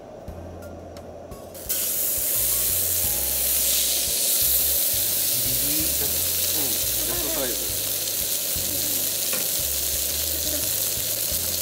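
Meat sizzling on a hot steak plate. The sizzle comes in suddenly and loud about two seconds in and holds steady.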